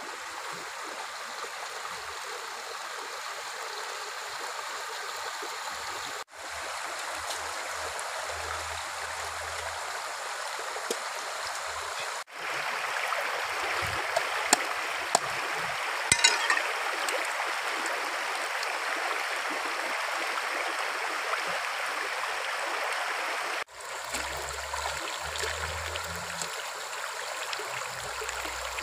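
Shallow rocky river running steadily over stones, with a few brief splashes about halfway through as a plucked goose is rinsed in the water.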